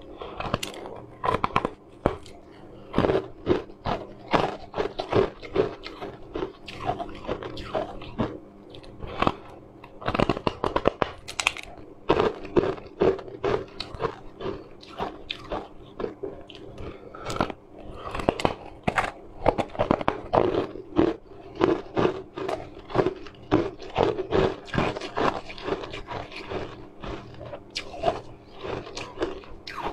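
Close-up crunching and chewing of chunks of ice: irregular sharp crunches, several a second, as the ice is bitten and chewed. A faint steady low hum lies underneath.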